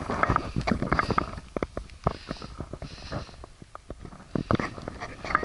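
Footsteps and handling noise from a handheld camera carried on a walk: irregular clicks, knocks and rustles, with two short breaths about two and three seconds in.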